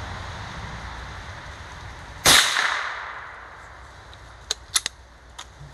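A single shot from a Keystone Crickett single-shot bolt-action .22 LR rifle: one sharp crack a little over two seconds in, with a short echo trailing off. A few light clicks follow about two seconds later.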